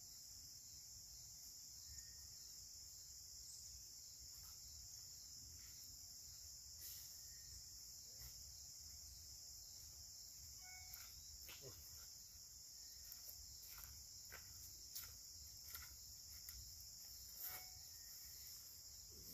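Faint, steady high-pitched insect chorus, with scattered faint clicks and crackles from about six seconds in.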